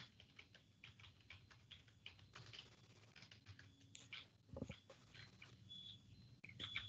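Faint, irregular taps and clicks of a computer keyboard being typed on.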